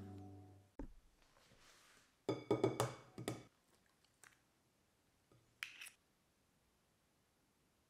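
Eggs tapped against a glass mixing bowl and cracked open: a quick run of sharp clinks with brief glass ringing, then a short crackle of shell near the end.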